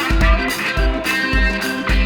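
Background music with a steady drum beat, about two beats a second, under guitar.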